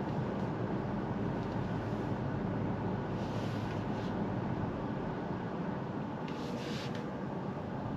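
Cabin sound of a 2023 BMW X7 M60i rolling slowly: a steady low rumble of engine and tyres, with brief hisses about three seconds in and again near six and a half seconds.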